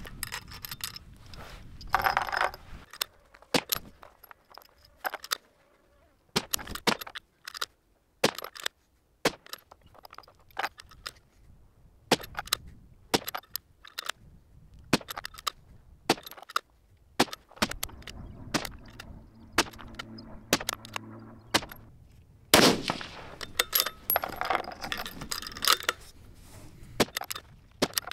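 6.5 Creedmoor bolt-action rifle fired from prone, shots separated by sharp metallic clicks of the bolt being cycled and cartridges handled. A loud report comes about two seconds in and the loudest about 22 seconds in.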